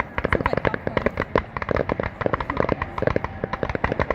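Fireworks going off in a rapid, continuous string of sharp pops and bangs, many to the second, like a barrage of firecrackers.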